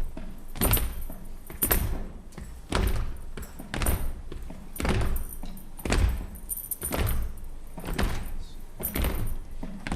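Percussion playing a slow, steady beat of about one hit a second, each hit with a deep thud and a jangling, rattling top.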